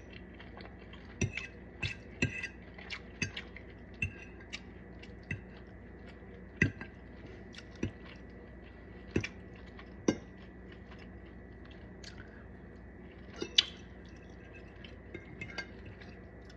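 Eating sounds: cutlery tapping and clinking on a plate, scattered single clicks a second or two apart, with some chewing between them.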